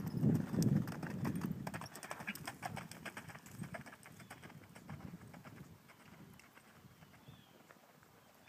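A Thoroughbred mare's hoofbeats cantering on a sand arena: dull thuds, loudest at the start and fading as she moves away.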